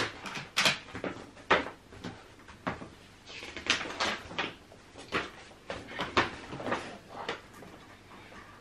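Plastic and metal clicks and knocks from a Mamas & Papas Ocarro pushchair frame as car seat adapters are pushed into its sides and a car seat is lowered onto it. The knocks are sharp and irregular, one or two a second.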